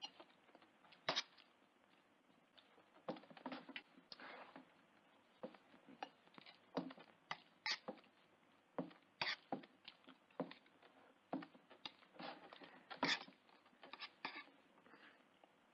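A man eating hungrily with a spoon from a plate: the spoon clinks and scrapes against the plate in short, irregular strokes, mixed with chewing.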